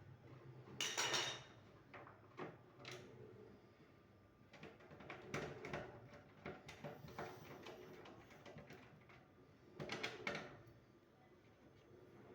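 Hands handling parts and tools during a kitchen chimney repair: irregular short knocks and rattles. The loudest clatter is about a second in, a cluster follows around the middle, and another comes near the end.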